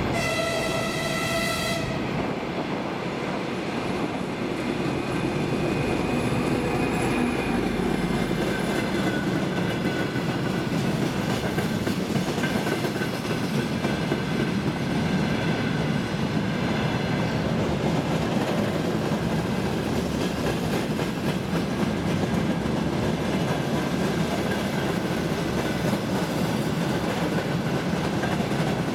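M62 diesel locomotive's horn, one steady note that cuts off about two seconds in, then the locomotive's two-stroke diesel engine passing close by, followed by a long line of freight wagons rolling past with a steady rumble and the clatter of wheels on the rail joints.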